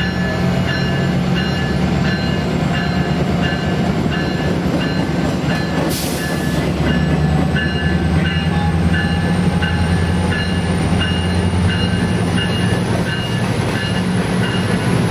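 Metrolink MP36PH3-C diesel locomotive rumbling as it pulls slowly into the platform, its bell ringing steadily about one and a half times a second. A brief hiss comes about six seconds in.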